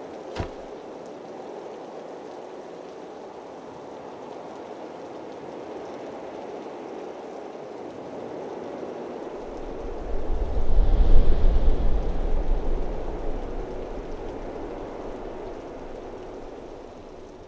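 Steady rushing outdoor ambience with a short sharp click just after the start; a deep low rumble swells about ten seconds in and eases off, and the sound fades out at the end.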